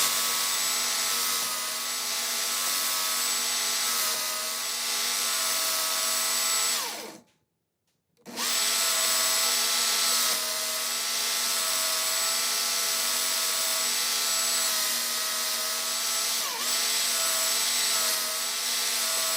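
Electric grinder motor running steadily while a knife edge is sharpened. About seven seconds in the motor slows and stops. After a second of silence it starts again, runs steadily, and slows down again at the end.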